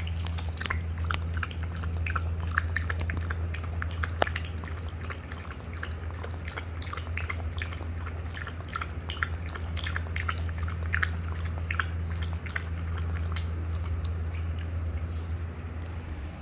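A Shih Tzu chewing, with irregular wet clicks and crunches several times a second, over a steady low hum.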